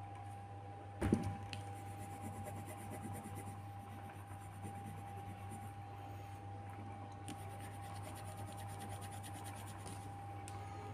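Coloured pencil scratching on paper in quick, short strokes during the second half. A single thump about a second in, and a steady low hum underneath.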